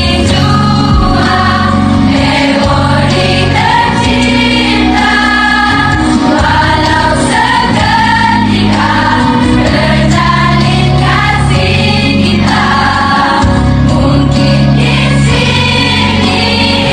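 Music with several voices singing together over a sustained bass accompaniment.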